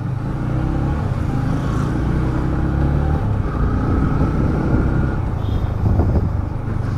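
Yamaha motorcycle engine running at low road speed, heard from the rider's seat with a steady low engine note. The note changes about three seconds in.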